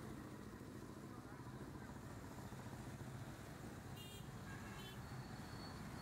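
Steady low rumble of street traffic, with short high-pitched horn-like toots about four and five seconds in.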